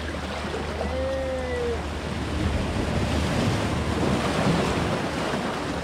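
Sea waves washing against rocks, swelling louder about halfway through, with wind buffeting the microphone. A short held tone sounds briefly about a second in.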